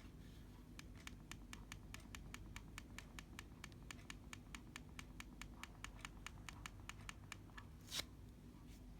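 Computer mouse buttons clicked in a rapid run, about four or five clicks a second, with one louder click near the end.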